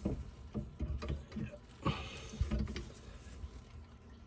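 Scattered knocks and clicks of tools and a work light being handled and set down inside a kitchen sink cabinet, a few sharper clunks near the start and around two seconds in.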